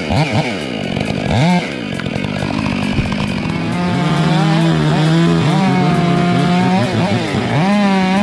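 Two-stroke chainsaw engine revved in quick blips, then held at high revs with the pitch briefly sagging and recovering.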